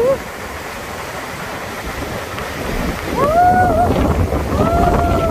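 Glacial meltwater river rushing in a torrent over boulders, with wind buffeting the microphone that grows stronger about three seconds in. A voice calls out twice in long drawn-out sounds in the second half.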